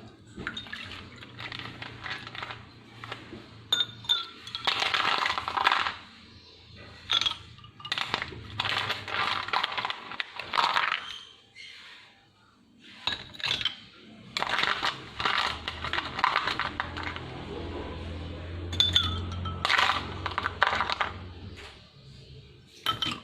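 Repeated clinking and clattering of small hard objects being handled, in clusters with short pauses, over soft background music.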